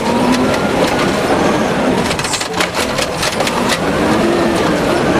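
A toy garbage truck being handled and moved about: steady scraping and clattering with many small clicks.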